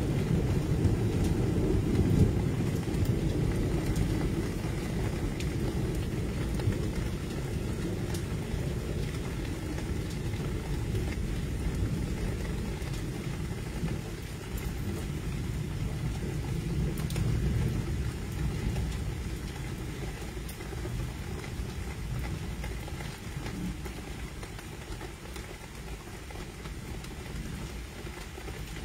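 Low rumble of a thunderstorm with a hiss of rain, swelling about two seconds in and again around the middle, then easing off toward the end.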